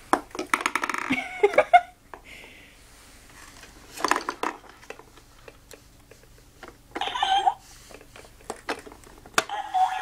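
Fisher-Price toy workbench playing short electronic sound effects through its small speaker, with plastic clacks and knocks as it is handled. The sound bursts come near the start, about seven seconds in and near the end.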